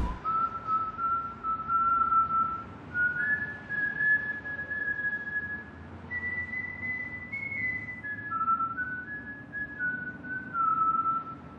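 Someone whistling a slow tune in long held notes. The pitch steps up through the first half, peaks about seven seconds in, then steps back down in shorter notes near the end.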